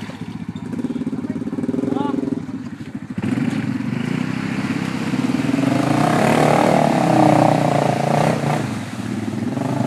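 Four-wheeler engines running and revving in a mud hole, the revs climbing and loudest about six to eight seconds in.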